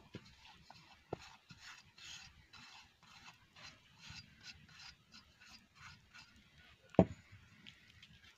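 A hand scraping chopped onion and parsley off a terracotta plate into an aluminium bowl: a run of soft, uneven rubbing and scraping strokes, with one sharp knock about seven seconds in.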